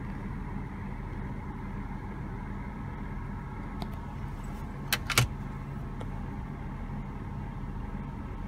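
Steady low hum of a BMW 523i (E39)'s straight-six engine idling, heard inside the cabin. About five seconds in come two sharp clicks close together.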